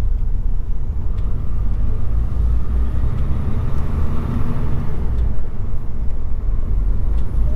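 A lorry's diesel engine and running noise heard from inside the cab, a steady low rumble.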